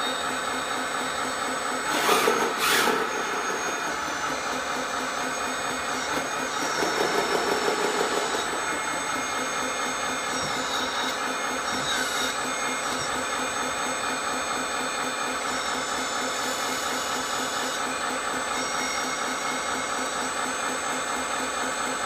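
JDM-98 1/14-scale metal hydraulic RC bulldozer running with a steady, evenly repeating mechanical whirr from its hydraulic system and built-in sound unit. It grows louder for about a second, two seconds in, and again from about seven to eight and a half seconds, as the blade and ripper are worked from the transmitter.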